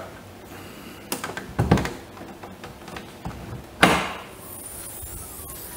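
A VW Golf Mk4's hood being unlatched and lifted: a few light knocks and a thud, then a louder clunk about two-thirds of the way through.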